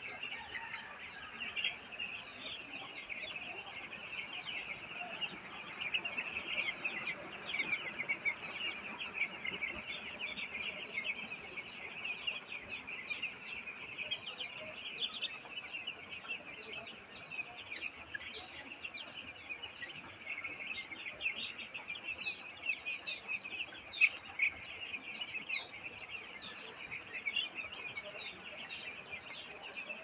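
A flock of young broiler chicks peeping without pause, a dense chorus of many short, high chirps overlapping each other.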